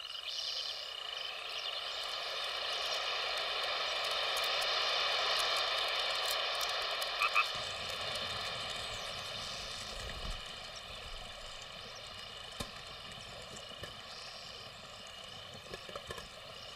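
Forest ambience of a steady frog and insect chorus, swelling and then slowly fading, with a brief double chirp about seven seconds in.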